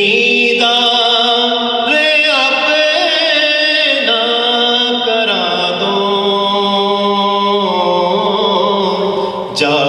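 A solo voice singing a devotional Urdu naat without accompaniment, long drawn-out notes with a wavering ornament, pausing briefly for breath a few times.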